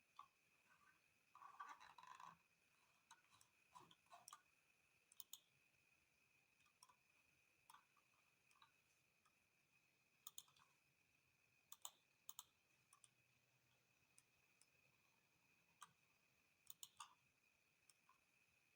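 Near silence with faint, scattered sharp clicks, some in quick pairs, over a faint steady high-pitched tone.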